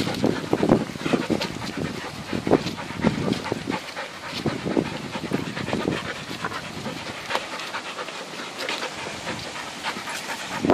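Dogs panting hard close by, a quick, irregular run of breaths.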